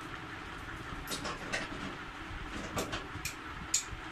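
Small, sharp clicks from a thin wire and a plastic sensor connector being handled, several of them scattered through the middle, over a steady low background rumble.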